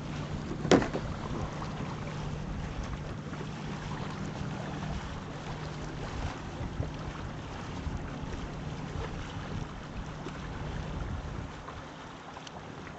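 Wind on the microphone and water moving along a boat's hull, over a steady low hum. A single sharp knock comes about a second in, and the sound drops a little near the end.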